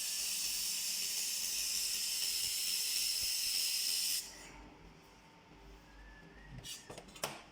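Handheld fiber laser welder firing on a seam: a steady high hiss for about four seconds that cuts off suddenly, followed by a few short clicks near the end.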